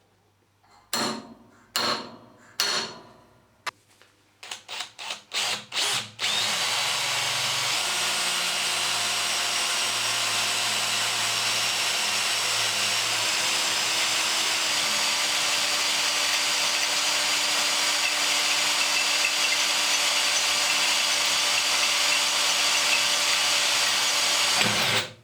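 Power drill with a 3 mm HSS bit drilling 316 stainless steel: a few short separate bursts in the first six seconds, then a steady continuous drilling run for about nineteen seconds that stops just before the end.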